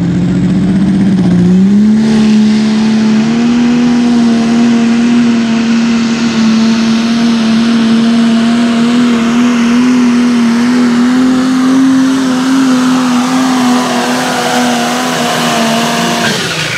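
New Holland light limited super stock pulling tractor running at full throttle under the load of a weight-transfer sled. The engine revs up in the first two seconds and holds steady, high revs down the track, then drops off sharply near the end as the pull finishes.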